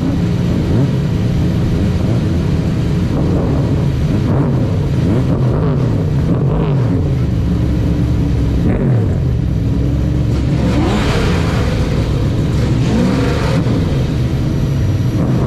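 Jaguar XJS V12 race engine running at low revs close to a bonnet-mounted camera as the car rolls slowly, its pitch rising and falling with light throttle. A rush of hissy noise joins it for a few seconds past the middle.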